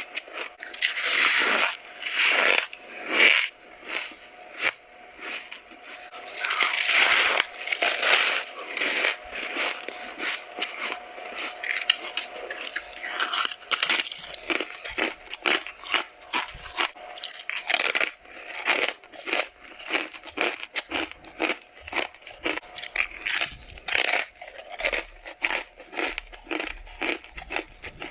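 Frost being bitten and chewed close to the microphone: a continuous run of crisp, crackling crunches, with louder bites now and then.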